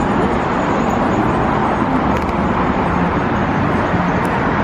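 Steady road traffic noise: the even rush of cars going by on a street.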